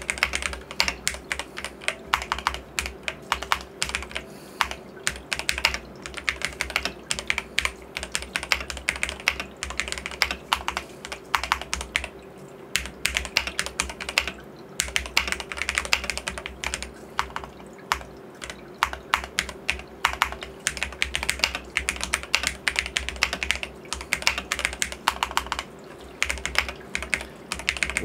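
Fast touch-typing on a DrunkDeer A75 keyboard with magnetic switches: a rapid, irregular stream of key clacks with a few brief pauses.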